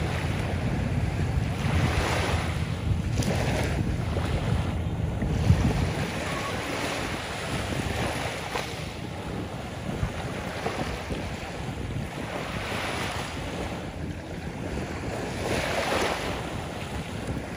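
Small waves breaking and washing up a sandy shore, a soft rush of surf that swells and eases every few seconds. Wind rumbles on the microphone for the first several seconds, then drops away.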